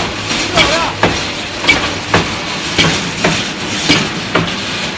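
Automatic date pitting machine running, its pitting mechanism knocking in a regular rhythm about every half second over a steady motor hum.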